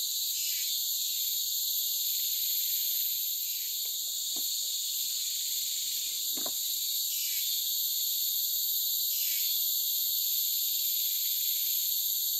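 Tropical forest insects buzzing steadily in several high-pitched bands, with a pulsing call that drops in pitch and repeats every two to three seconds.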